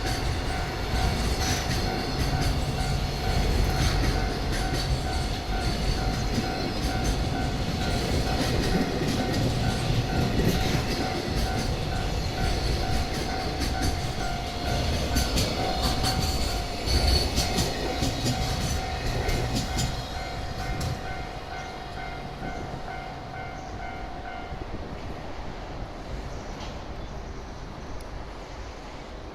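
A train running over a Japanese level crossing, its wheels clattering on the rails, while the crossing's warning bell rings in an even repeating rhythm. The bell stops about 24 seconds in and the train sound fades away.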